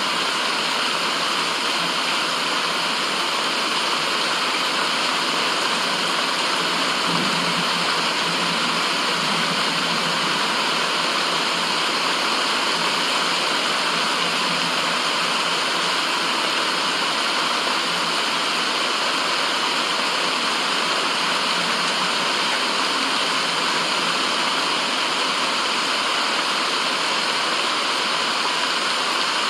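Steady, unchanging white noise: an even rushing hiss with little bass, much like a waterfall.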